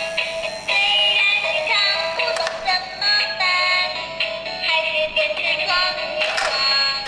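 Synthesized electronic music: a bright, quick melody over a steady held note.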